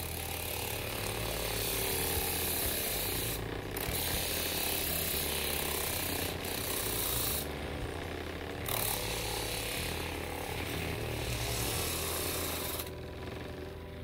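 A homemade sander driven by a microwave oven's shaded-pole fan motor runs with a low steady hum, while a flat screwdriver tip is held against its spinning 1200-grit sanding disc to sharpen it. The steel rubbing on the abrasive gives a rasping hiss that stops briefly about three and a half seconds in, again for about a second near the eight-second mark, and once more near the end, as the tip is lifted off.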